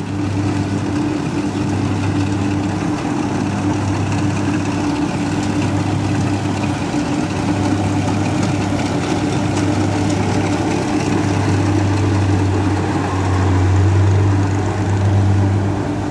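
Kubota DC60 rice combine harvester running while it cuts and threshes rice: a steady diesel engine drone under load with mechanical noise from the cutting and threshing works. It gets louder near the end as the machine comes close.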